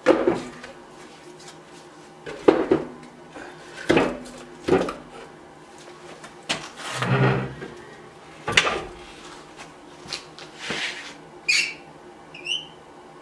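Irregular wooden knocks and metal clunks at a wood stove as the fire in its firebox is tended and the door is shut, with two short high squeaks near the end.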